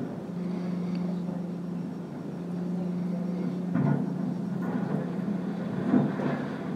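Demolition excavator's diesel engine running steadily as it tears at a building, with loud crashes of breaking and falling debris about four seconds in and again near six seconds.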